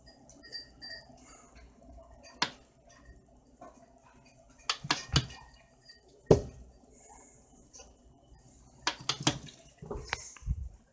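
Scattered sharp knocks and clinks of hard kitchen objects: a single knock, a quick run of clinks, the loudest knock just past the middle, another run of clinks, and a couple of dull low thumps near the end.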